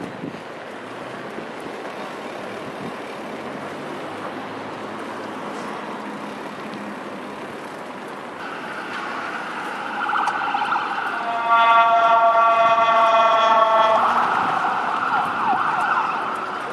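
Emergency vehicle siren sounding over steady street traffic noise, starting about eight seconds in, with a loud steady blare for a couple of seconds near the middle before it fades.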